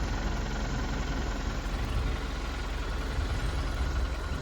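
Steady low rumble of a moving safari tram, its engine running with road noise.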